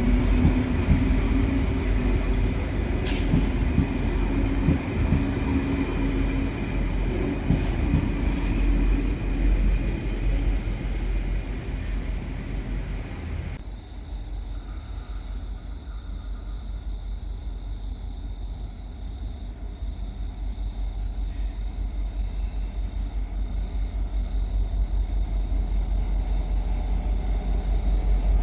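A train running past with a steady low engine drone and wheel-and-rail noise. It cuts off abruptly about halfway through to a quieter low rumble that grows louder toward the end.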